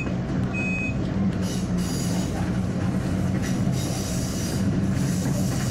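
Electric commuter train running along the track: a steady low motor hum over rolling rail noise, with patches of high hissing from the wheels coming and going on the curving line. A single short, high electronic beep sounds just after the start.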